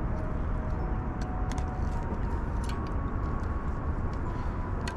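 Steady low outdoor rumble with a few light clicks from the rod and fish being handled.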